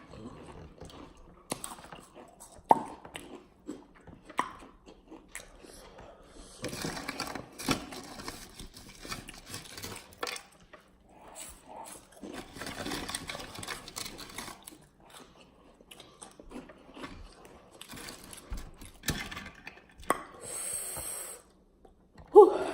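Takis and Hot Fries being bitten and chewed, in irregular bursts of crunching.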